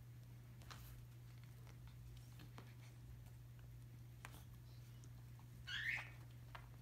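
Quiet, faint scattered taps and rustles from a cat rolling and kicking a catnip fish toy on carpet, over a steady low hum. Near the end comes one short, high, wavering squeak.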